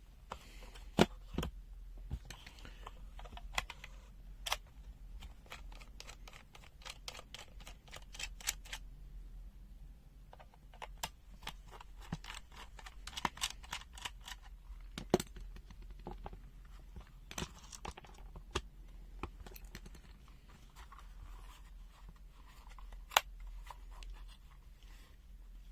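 Hands taking apart a plastic-cased handheld digital multimeter: scattered clicks, taps and short scraping sounds, with a few sharper clicks about a second in, mid-way and near the end.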